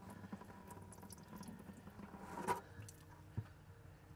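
Water draining faintly out of a Kobelco excavator's engine oil pan into a plastic bucket, with one louder swish about two and a half seconds in and a small knock near the end. The pan is full of water instead of oil, which the owner puts down to years of condensation.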